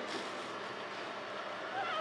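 Newborn puppy giving one short, high squeak near the end, over a steady hiss.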